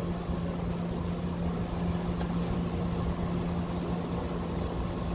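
Steady low hum and rumble of idling vehicles and street noise, with one constant low drone throughout.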